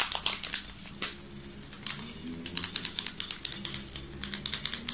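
Chia seeds shaken from a packet, landing on a ceramic plate as quick, irregular ticks, in two spells with a pause of about a second and a half between them.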